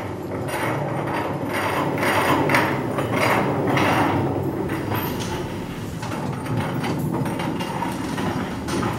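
Loud, continuous mechanical rattling and clatter: a dense run of clicks over a low rumble, swelling up at the start and then holding steady.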